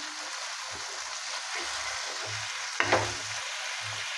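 Fish sizzling as it shallow-fries in very little oil in a flat pan, with a spatula stirring and turning the pieces. One sharp knock of the spatula against the pan comes just under three seconds in.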